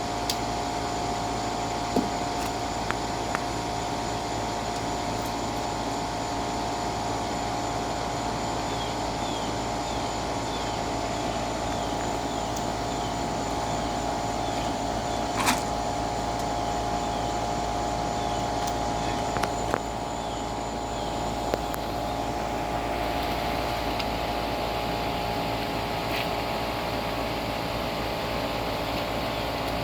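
Steady machine hum with a fixed tone and a low drone, broken by a few short sharp clicks, the loudest about halfway through.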